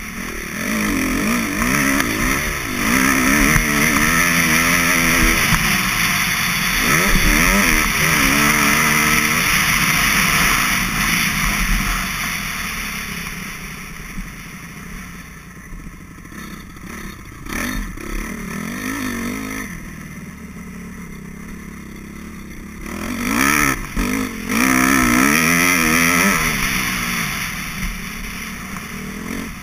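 Motocross bike engine revving up and down over and over as it is ridden hard on a dirt track, heard from a camera mounted on the bike. It eases off for several seconds midway, then revs hard again.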